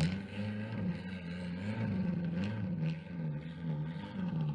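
Turbocharged VAZ-2110 four-cylinder engine running at idle in a Moskvich-2140, its pitch wavering up and down over and over, less than a second each swing.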